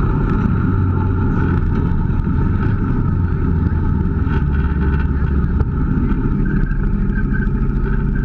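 Kawasaki KVF 650 ATV's V-twin engine running steadily while the quad rides along at a constant pace.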